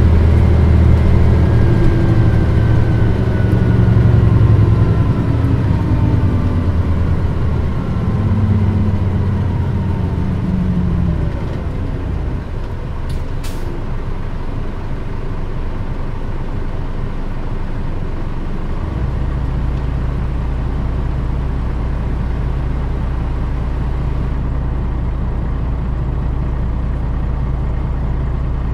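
Diesel engine of a 2002 Mitsubishi Fuso Aerostar KL-MP35JM city bus, heard from on board: engine note falling in pitch as the bus slows, then about two-thirds of the way through settling into a steady low idle. A short air hiss about halfway through.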